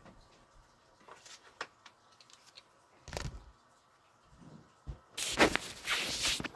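Handling noise on the recording phone: a few light clicks and taps, a soft thump about three seconds in, then a loud stretch of rustling and rubbing near the end as the phone is moved against fabric.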